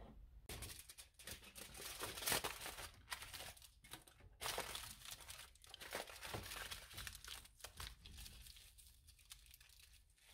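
Aluminium foil crinkling as it is wrapped and pressed around a cut half apple, continuing almost throughout with a short pause about four seconds in.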